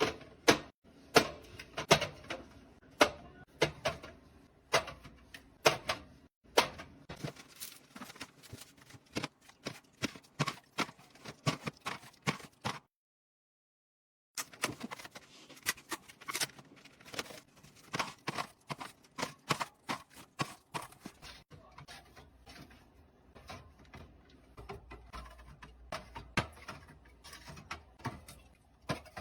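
Groceries and containers being handled and set down: a long run of irregular sharp clicks and clacks, several a second at times. About thirteen seconds in, the sound drops to dead silence for a second and a half, then the clacking resumes.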